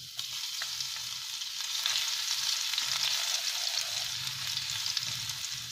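Chopped garlic sizzling in hot mustard oil in a non-stick frying pan, stirred with a wooden spatula. A steady hiss with a few light clicks.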